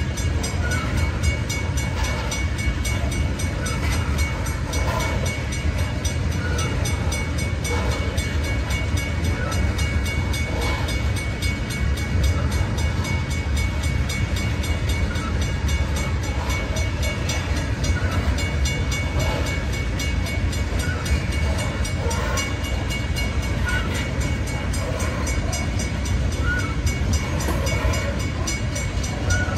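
Loaded coal hopper cars of a freight train rolling steadily past: a constant low rumble of steel wheels on rail, with scattered short squeals and clanks.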